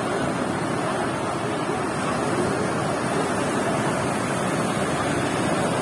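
Steady surf of ocean waves washing onto the beach, an even rushing noise with no distinct breaks.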